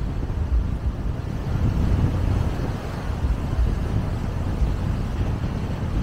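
Wind buffeting the microphone: a steady, uneven low rumble.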